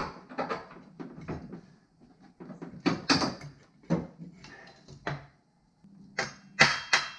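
Metal knocks and clunks while a car's front steering knuckle and hub assembly is worked loose and pulled out. Near the end come several sharp, louder strikes, about two a second.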